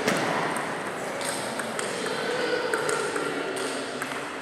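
Table tennis ball clicks in a sports hall: one sharp click just after the start, then a few fainter ticks over the steady room noise of the hall.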